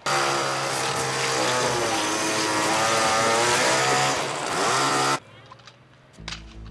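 Chainsaw running loudly, its engine pitch wavering, then cutting off abruptly about five seconds in.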